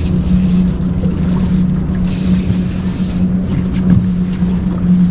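A boat motor running with a steady low hum, and a brief hiss about two seconds in.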